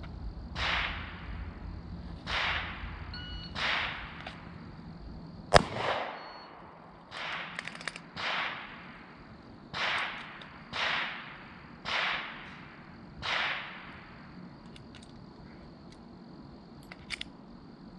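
Shots from a Glock 27 .40 S&W pistol, fired one at a time about a second or more apart, nine or ten in all, with one sharper, louder crack about five and a half seconds in. The firing stops about fourteen seconds in.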